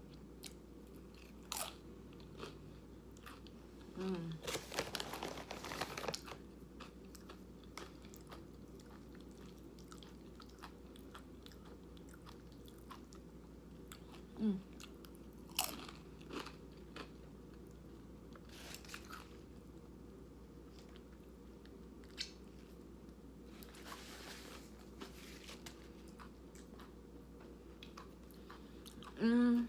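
A person crunching a big bite of chips loaded with layered bean dip close to the microphone, then chewing it with scattered wet mouth clicks. The loudest crunching comes a few seconds in.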